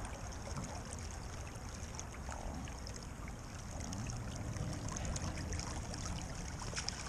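Stream water running steadily, an even hiss with a few faint ticks.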